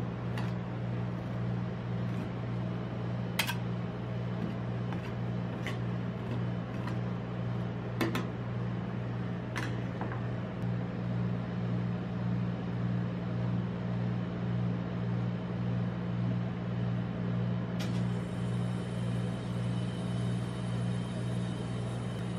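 Steady low hum of a rolled-ice-cream cold-plate machine's refrigeration compressor, with a few sharp clicks of a metal spatula tapping on the steel pan in the first ten seconds.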